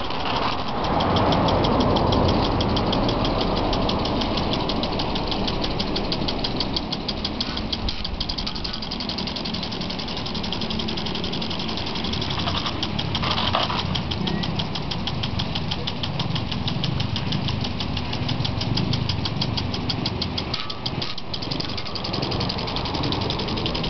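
Lawn sprinklers spraying, with a rapid, even ticking several times a second over the hiss of water, and a steady low rumble underneath.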